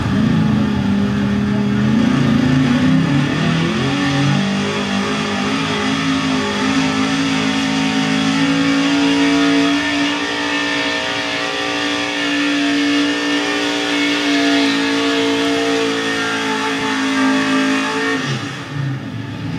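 1977 Ford pulling truck's engine revving hard under full load as it drags a weight-transfer sled, the revs climbing in the first few seconds, holding high, then dropping near the end. Heard played back through a television's speaker.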